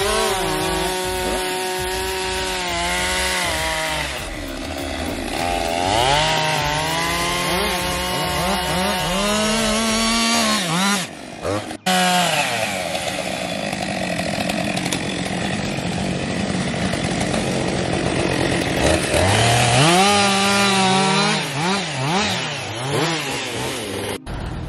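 Two-stroke chainsaw cutting oak limbs. The engine revs up into cuts and drops back toward idle several times, with a brief break about halfway.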